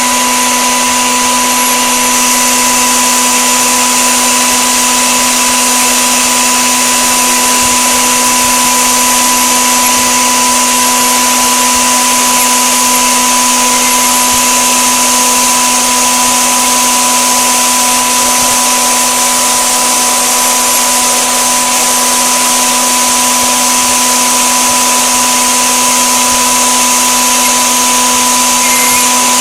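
Stone-cutting CNC router's spindle running steadily: a constant whine with a hiss over it.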